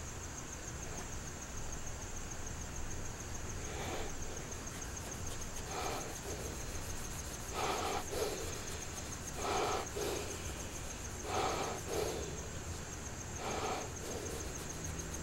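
Hand sanding or polishing of a pocket-knife blade: soft rubbing strokes, about one every two seconds, starting a few seconds in, over a steady high-pitched chirring.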